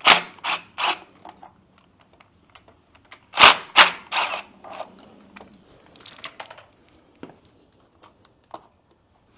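Hand tools and metal parts clacking during bolt removal: a few sharp clicks at the start, a louder cluster of clacks about three and a half seconds in, then lighter scattered taps.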